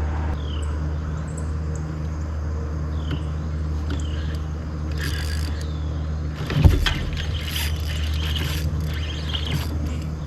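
A steady low mechanical hum, with bouts of scraping and knocking and one sharp thump about two-thirds of the way through.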